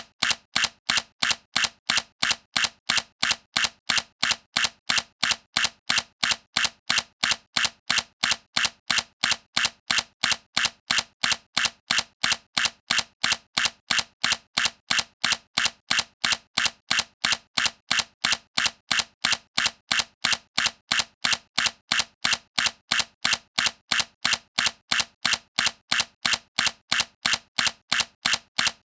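Sony A7C mirrorless camera's shutter firing over and over in an even series of sharp clicks, about three a second.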